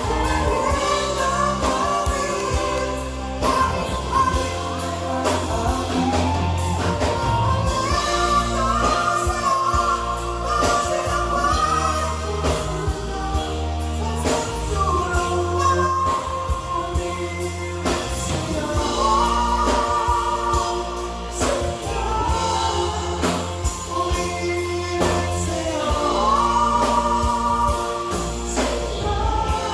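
Music: a song with a singing voice over a band accompaniment with a steady beat and bass.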